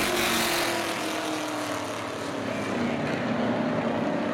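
A pack of street stock race cars running together around a short oval track, their engines droning, with the engine pitch sliding downward as the cars pull away.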